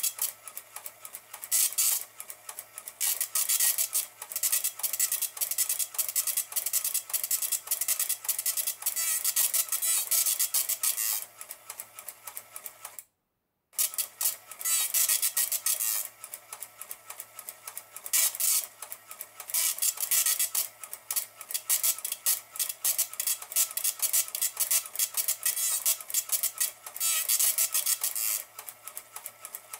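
Elka 803-02 cash register's dot matrix printer printing a report: a rapid, rattling buzz of the print head in bursts of one to two seconds, with short pauses between them. The sound cuts out completely for about half a second near the middle.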